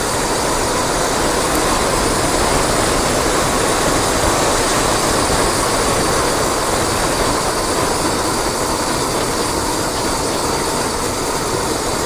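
Steady rushing, rumbling noise of a bicycle ride downhill: wind on the action camera's microphone and tyres rolling over a rough road.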